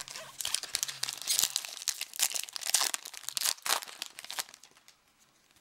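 Wrapper of a 2011 Bowman Platinum baseball card pack crinkling and tearing as it is opened. It is a dense run of crackles that stops about four and a half seconds in.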